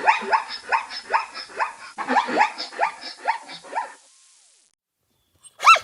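An animal giving a quick run of short yelping barks, about three a second, each falling in pitch; they stop about four seconds in, and a louder series of arched calls starts near the end.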